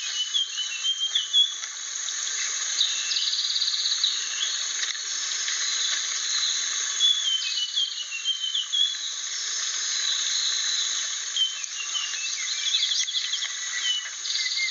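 Blue flycatcher (sikatan biru) singing: several phrases of quick, high, twittering notes that rise and fall, a few rapid buzzy trills, all over a steady hiss.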